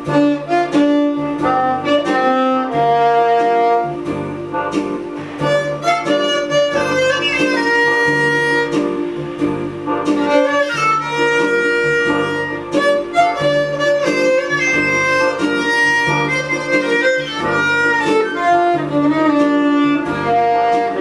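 Violin playing a slow melody in long bowed notes, over an accompaniment with a low part that pulses in a steady, regular beat.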